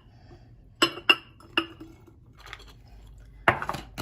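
A kitchen utensil clinking against glass as chopped onion, lemon and ginger are transferred from a bowl into a glass jar: a few sharp clinks with a short ring about a second in, then a louder knock near the end.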